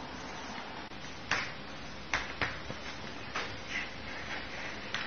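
Sharp taps and clicks from a French bulldog puppy's claws on a hardwood floor as it scrambles up, about five of them, over a steady hiss.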